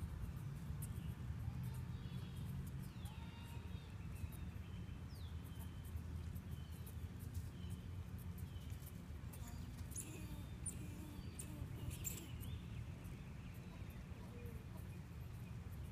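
Outdoor ambience: a steady low rumble with faint, scattered high chirps, and a few sharp clicks about ten and twelve seconds in.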